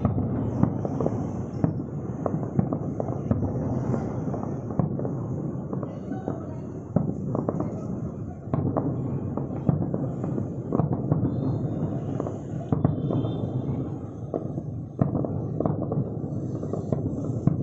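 Aerial fireworks display: shells bursting in quick, irregular succession, with many sharp bangs over a continuous low rumble and crackle.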